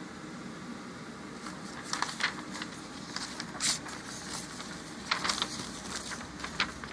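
Paper rustling in several short scratchy bursts as the drawing sheets are handled, over a steady room hiss and hum.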